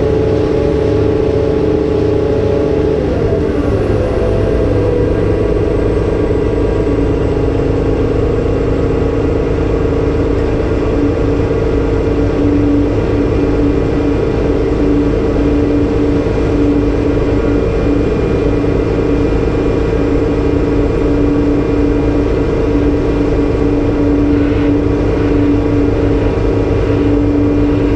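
Cat 390F excavator's diesel engine and hydraulic pumps running hard under load, with a steady whine. About three to four seconds in the pitch drops, then holds steady while a lower tone pulses on and off.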